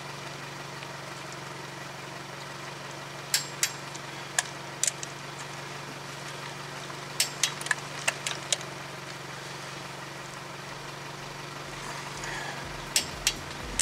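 Click-type torque wrench tightening wheel lug nuts, giving sharp clicks in pairs and small groups as each nut reaches the set torque of 83 foot-pounds. A steady low hum runs underneath.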